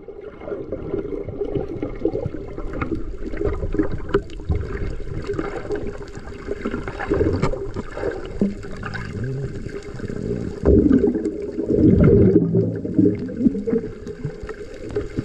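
Muffled underwater sloshing and gurgling of water around a camera held just below the surface, with louder surges about two-thirds of the way through.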